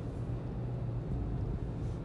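Steady low rumble of a car driving: engine hum and road noise.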